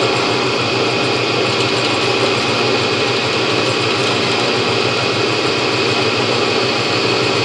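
Rockwell milling machine running steadily while its drill is fed down by the quill handle to drill indent holes around an indexing wheel set on an indexing table.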